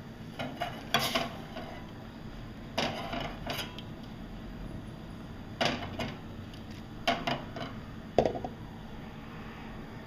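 Aluminium saucepan of milk on a gas stove clinking and knocking against metal in five short bursts of clatter, the sharpest about a second in and about eight seconds in, over a low steady hum.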